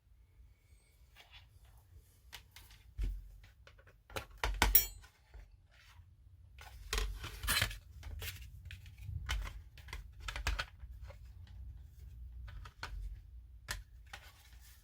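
Scattered clicks, taps and rustling from hands handling a plastic model kit and its LED wiring while hooking it up for a light test, with the loudest bursts about four and seven seconds in.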